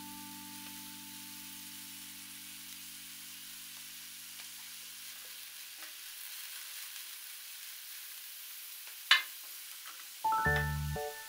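Julienned vegetables, fish-cake strips and enoki mushrooms sizzling in an oiled frying pan, with a steady hiss as a silicone spatula stirs them. A held music chord fades out over the first few seconds, there is a single sharp knock about nine seconds in, and background music with a bass line starts near the end.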